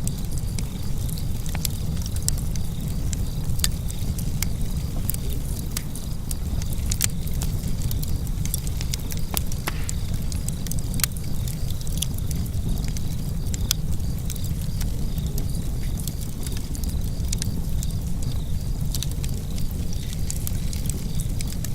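Wood fire burning in a fireplace: a steady low rumble with irregular crackles and pops scattered throughout.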